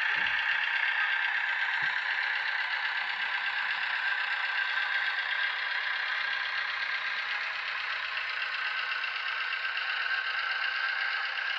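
Engine sound of a model Fowler diesel shunter running steadily as the O gauge locomotive moves its tank wagons, growing slightly fainter toward the end.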